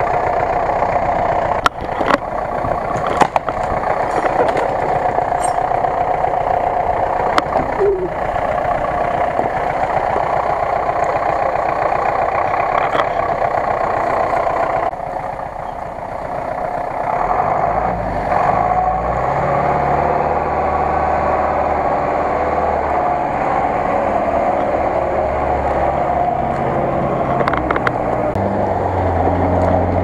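GAZ-66 truck's engine running under load as the truck crawls through forest mud. In the second half its low note rises and falls in steps as the throttle is worked.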